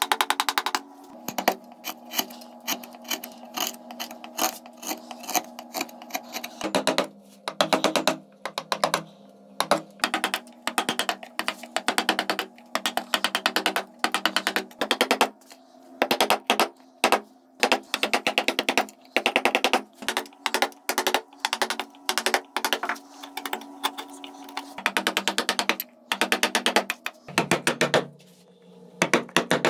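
Rapid runs of sharp taps from a carving chisel being driven into walnut, cutting out a scroll pattern, over soft background music with sustained chords.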